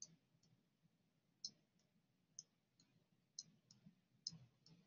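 About half a dozen faint, irregular clicks of a stylus tapping a tablet screen while numbers are handwritten.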